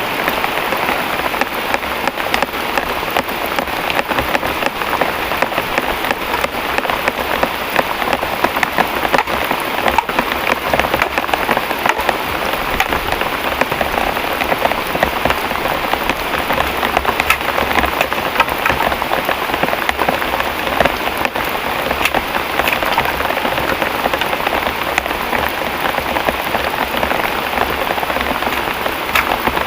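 Heavy rain falling steadily, a dense even hiss with countless small drop patters throughout.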